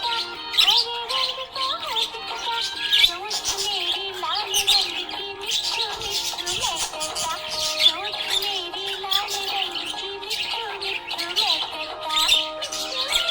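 Budgerigar chirping and chattering in quick, high chirps throughout, over background music with held melodic notes.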